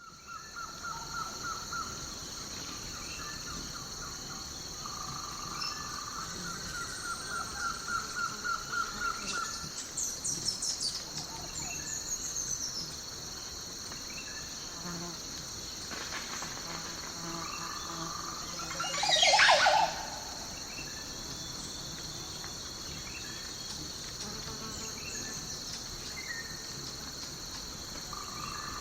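Nature ambience of a steady high-pitched insect and cricket chorus, with pulsed trills and scattered bird chirps. One louder sweeping bird call comes about two-thirds of the way through.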